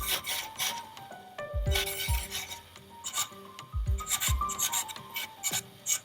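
Hand filing or rasping strokes, several a second, with a few dull low thumps between runs of strokes.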